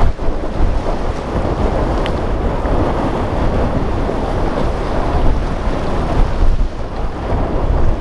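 Wind rumbling on the microphone over choppy seawater and breaking wake, with a Hydra-Sports center console's single outboard motor running at speed under it.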